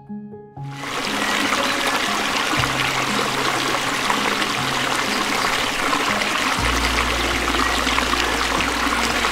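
Steady rushing of running water that starts suddenly about a second in, over background music with low held notes.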